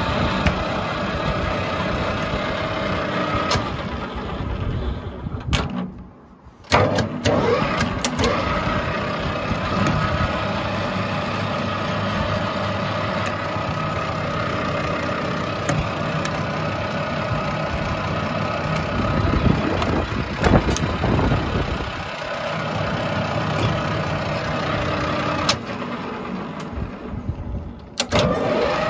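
Colchester Student MK2 lathe running under power, a steady machine hum with a whine through it. About six seconds in the sound drops away briefly and comes back with a few clunks, and there are more clunks later on.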